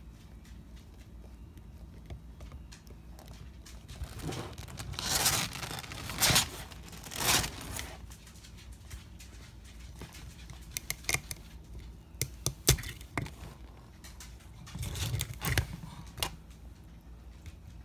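Savannah monitor working at a raw egg in a plastic bowl: a few rasping scrapes of eggshell against the bowl, then a run of sharp clicks and cracks as the shell breaks open, and another scrape near the end.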